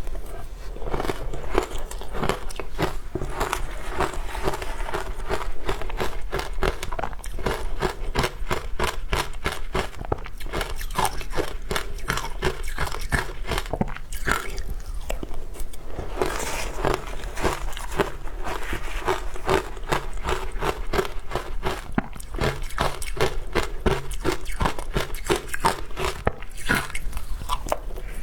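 Close-miked crunching and biting of frozen matcha ice: a dense, unbroken run of crisp crackling crunches.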